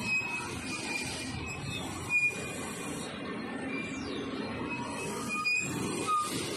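Heavy dump trucks running in convoy over a rough dirt road: a steady rumble of diesel engines and rolling tyres, with several brief high squeals, the loudest about two seconds in.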